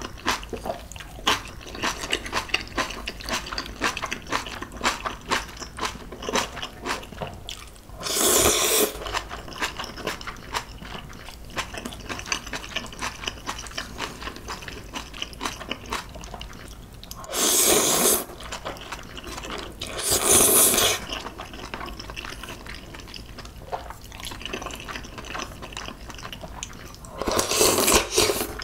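Close-miked eating of clam noodle soup: steady wet chewing and mouth clicks, broken four times by a loud slurp about a second long. The last slurp, near the end, is broth sipped from a small bowl.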